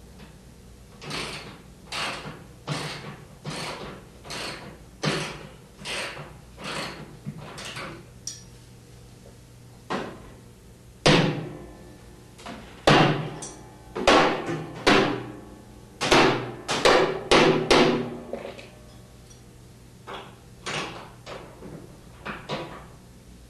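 Metal clamp ring on a front-load washer's outer tub being tapped around its edge with a tool, a series of sharp ringing metallic knocks about once a second, with a couple of short pauses. The tapping seats the ring evenly while its clamping screw is tightened.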